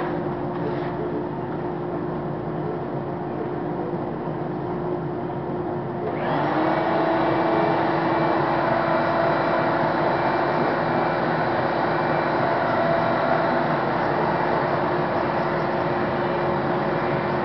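A steady machine hum, then about six seconds in a shop vacuum switches on with a brief rising whine and runs steadily as its hose nozzle is worked over a cut foam wing core.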